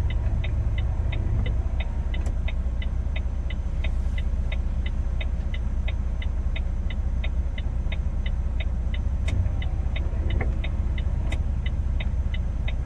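Truck engine running with a steady low drone, heard inside the cab, with an even ticking about three times a second throughout.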